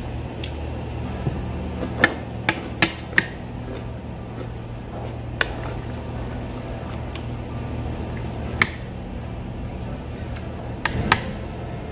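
Metal chopsticks clicking against each other and against a plate as food is picked up: scattered sharp clicks, a quick run of four about two seconds in and a pair near the end, over a steady low hum.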